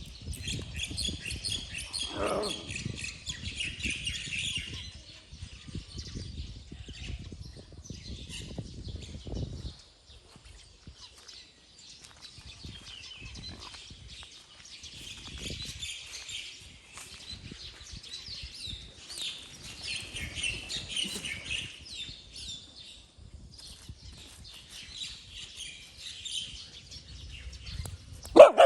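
Many small birds chirping and twittering together, on and off throughout, with one short, loud yelp near the end.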